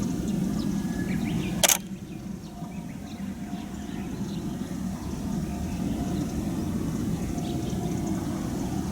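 Steady low vehicle rumble outdoors, with one sharp click about two seconds in.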